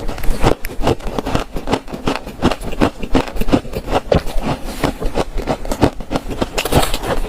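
Close-miked crunching and chewing of freezer frost: rapid, gritty crunches several times a second.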